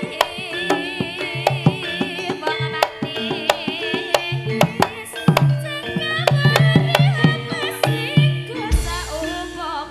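Javanese jaranan ensemble music: rapid hand-drum strokes over held gamelan tones, with a high wavering melody line. A deep low note swells in near the end.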